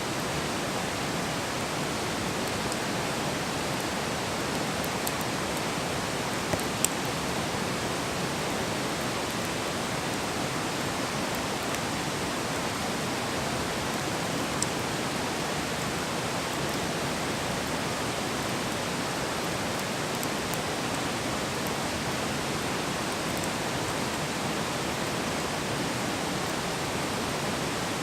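Wood campfire burning: a steady, even rush with a few faint sharp pops, the clearest about seven seconds and fifteen seconds in.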